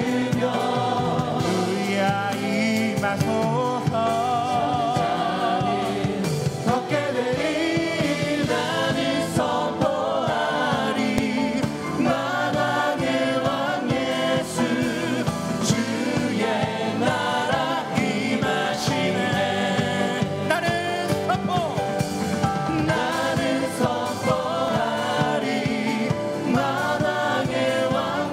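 Live worship music: a group of men and women singing a Korean praise song together, led by a singer playing acoustic guitar.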